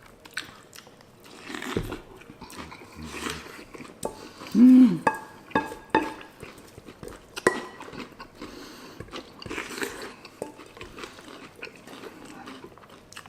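Crunching and chewing of a mouthful of hard breakfast cereal, with a few sharp clinks of a spoon against the bowl that ring briefly, and a short low hum from the eater about four and a half seconds in.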